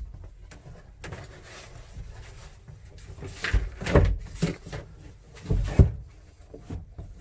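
Scattered knocks and bumps of work on a panel, with two louder thuds about four and six seconds in.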